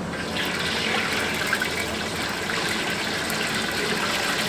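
Stinky tofu deep-frying in a wok of hot oil: a dense, crackling sizzle that sets in suddenly as the tofu goes into the oil and then holds steady.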